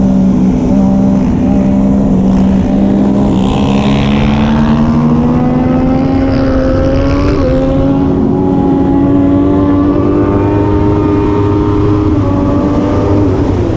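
Triumph Daytona 675R inline-three race motorcycle engine running hard under load, its pitch climbing slowly for about seven seconds, wavering briefly, then levelling off and easing down.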